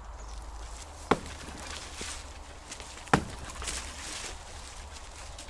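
Two sharp blows on wood, about two seconds apart, each with a short ring.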